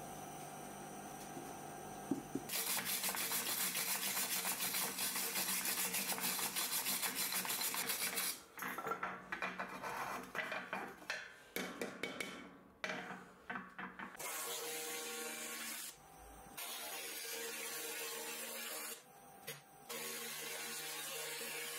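2000-watt handheld laser rust cleaner working over rusted steel parts, a steady buzzing hiss. In the middle there is a stretch of irregular scraping and handling of metal parts.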